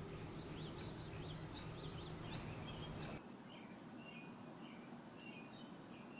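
Small backyard birds chirping, with a quick run of short rising and falling notes in the first half and fewer, softer chirps after. A low steady background hum drops away about three seconds in.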